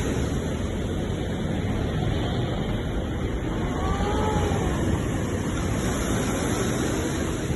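Sea waves washing in a steady, continuous rush. About four seconds in, a faint short whistle-like tone rises and falls.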